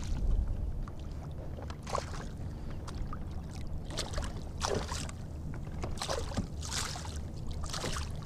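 Water splashing as a small hooked fluke (summer flounder) thrashes at the surface beside a kayak while it is landed by hand: several brief splashes over a steady low rumble.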